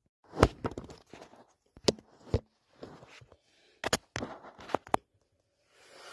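Handling noise from a phone camera being picked up and set in place: a string of sharp knocks and clicks against the microphone, about seven, with soft rubbing and rustling between them and a softer rustle near the end.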